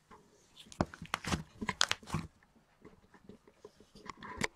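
Butter slime mixed with kinetic sand being squeezed and stretched by hand, making small crackling pops as air bubbles in it burst. The pops come in a cluster about a second in and again near the end.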